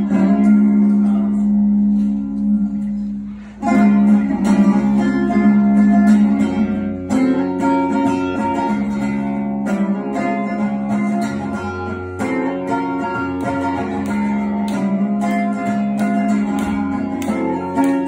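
Acoustic-electric guitar strummed in a steady rhythm, with a short break about three and a half seconds in before the strumming picks up again.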